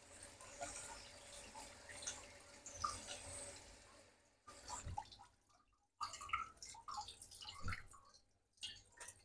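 Faint dripping and trickling water at a kitchen sink, with small irregular knocks of a pot being handled; it drops out for a moment about halfway.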